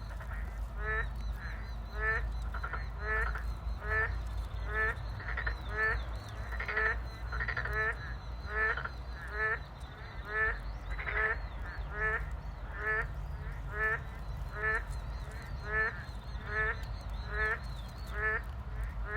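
A frog croaking over and over at an even pace, about one and a half calls a second, over a steady low rumble.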